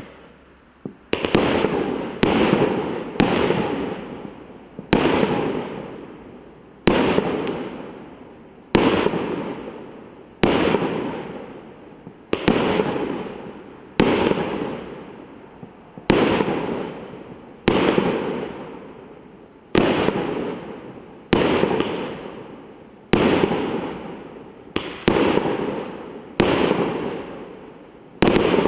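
A 1.2-inch, 19-shot fireworks cake firing its shots one after another, about one every one and a half to two seconds. Each shot is a sharp bang that fades away over a second or so.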